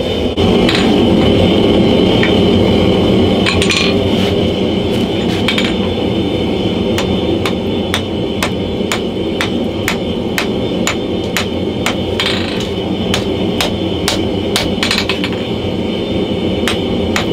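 Hand hammer striking a red-hot leaf-spring steel cleaver blank on an anvil: a few scattered blows at first, then a steady rhythm of about two blows a second from about seven seconds in, with a short pause near twelve seconds. The lit forge runs steadily underneath.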